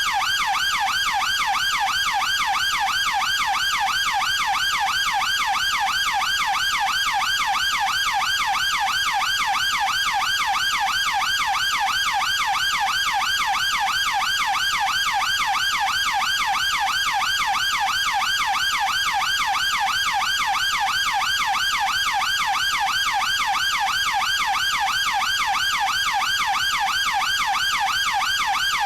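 British police car siren sounding in its fast yelp: a rapid, even up-and-down warble that repeats without a break. It starts abruptly.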